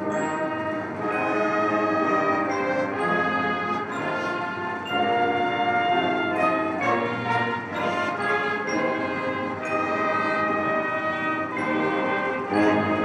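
Brass band playing ceremonial music with long held notes, accompanying a military salute; it swells louder near the end.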